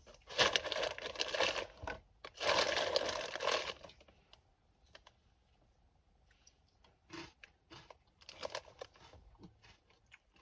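Plastic snack packaging crinkling and tearing open in two long rustling bursts in the first few seconds, then a few faint crackles and clicks.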